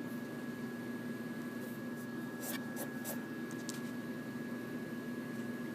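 Small CNC router running: a steady motor hum with a constant high whine. The cutter makes short scratching strokes on the rubber hockey puck, several in quick succession from about one and a half to four seconds in.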